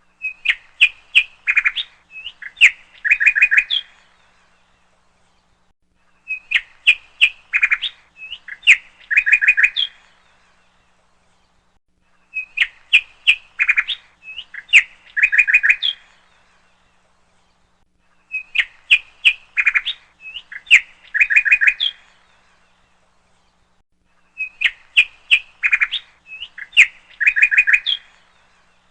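A bird's chirping song: a quick run of sharp chirps followed by a few short trills, each phrase about four seconds long. The phrase repeats five times, with pauses of about two seconds between.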